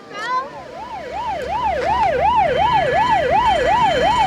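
Electronic siren in fast yelp mode, its pitch sweeping up and down about four times a second. It gets louder over the first two seconds, then holds steady.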